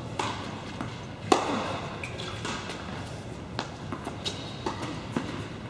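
Tennis rally on an indoor hard court: sharp pops of racket strikes and ball bounces at irregular intervals, the loudest about a second in, each ringing briefly in the large hall.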